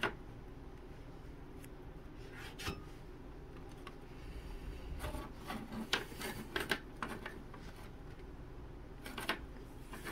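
Thin laser-cut wooden parts being pushed and slid by hand into the slots of a small wooden model-boat frame: faint rubbing and scraping with a scatter of light clicks, busiest in the middle.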